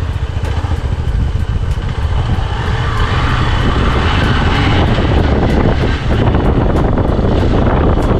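Hero Xpulse motorcycle's single-cylinder engine running at low speed on a dirt track, with steady wind rumble on a bike-mounted microphone.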